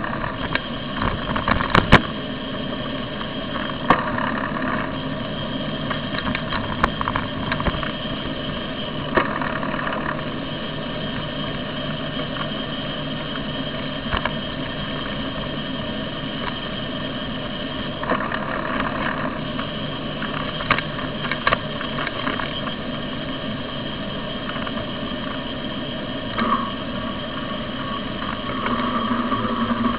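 Steady rumble and rattle from a bicycle rolling over pavement, picked up by a camera mounted on the bike, with scattered sharp clicks and knocks as it goes over bumps.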